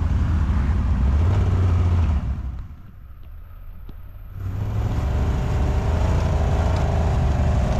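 Can-Am ATV engine running in neutral while the machine is stuck in muskeg. A steady low rumble drops away sharply for about two seconds midway, then picks up again.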